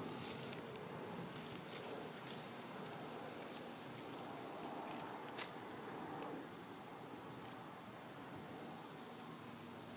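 Faint rustling and light clicks as a hand moves through the leaves of a potted miracle fruit tree, over steady outdoor background hiss. Short, faint high chirps sound every second or so throughout.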